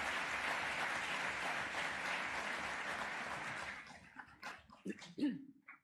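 Audience applause, steady and dense at first, breaking up into scattered separate claps about four seconds in and dying away near the end.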